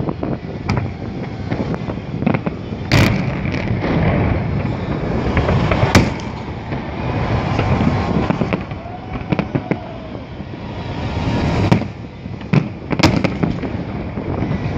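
Fireworks display going off: a run of pops and crackles, with three sharp loud bangs about three, six and thirteen seconds in.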